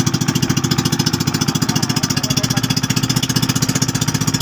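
Pumpboat's engine running steadily under way, a loud, rapid, even pulsing.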